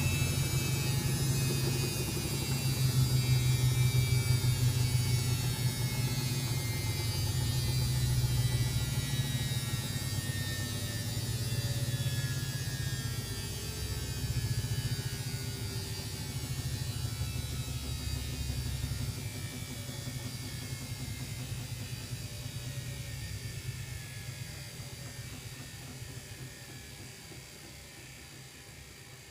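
Samsung WF6700 washing machine's brushed AC motor and drum slowing down after the final spin: a whine that falls steadily in pitch over a low drum rumble. The rumble fades out a little past halfway, and the whole sound dies away as the drum coasts to a stop.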